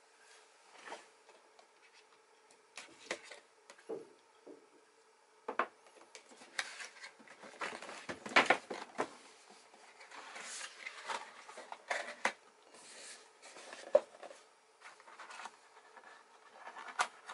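Cardboard product box being handled and opened: irregular scrapes, rubs and light taps of cardboard sliding against cardboard and the table, busiest in the middle.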